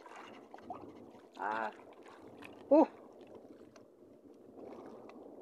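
Water lapping around a small fishing boat, with a little wind on the microphone, while a fish is hauled up on a handline. Two short vocal exclamations from the fisherman come about one and a half and three seconds in, the second one loud and brief.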